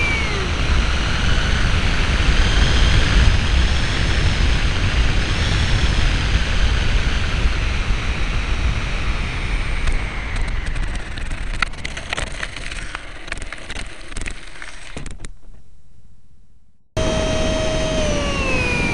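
Electric ducted-fan model plane heard from on board: wind rush over the airframe as it glides in with the fan throttled back, then the fiberglass skidplate scraping and rattling along asphalt for several seconds as it slides to a stop and fades out. Near the end the ducted fan's whine comes in again and falls steadily in pitch as it spools down.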